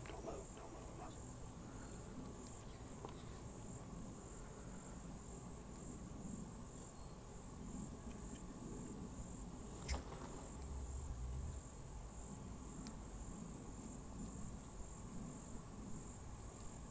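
A steady high-pitched insect trill that runs on without a break, with a single sharp click about ten seconds in.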